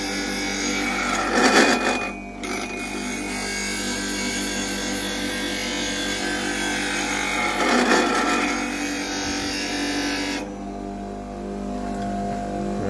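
Bench grinder running while the steel of a half-inch bowl gouge, held in a fingernail jig, is swung across the wheel, grinding with a steady hiss over the motor's hum as the fingernail (Ellsworth) bevel is shaped. The grinding breaks off briefly about two seconds in and stops about ten seconds in, leaving the motor humming on its own.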